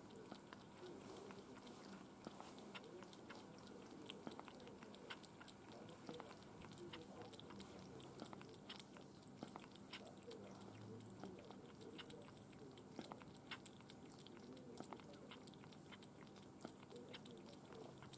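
Kitten eating cat food from a bowl, faint irregular licking and chewing clicks.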